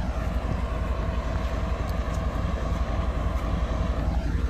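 GE WDG-4G diesel-electric locomotive's 12-cylinder GEVO engine running close by, with a deep rumble and a steady whine over it that drops away near the end.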